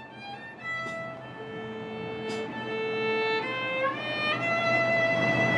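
Violin music: long held notes that step upward in pitch about three and a half to four and a half seconds in, growing louder toward the end.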